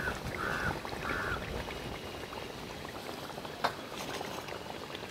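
Hot frying oil bubbling and sizzling faintly as the fried bajji are lifted out with a slotted spoon. A bird calls three short times near the start, and there is a single sharp click a little past the middle.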